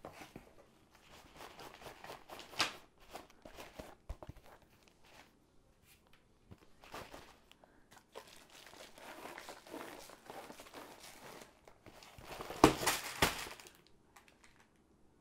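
Cardboard box and plastic packaging of a diamond painting kit being handled: rustling and crinkling with scattered light knocks, and a louder stretch of plastic crinkling near the end.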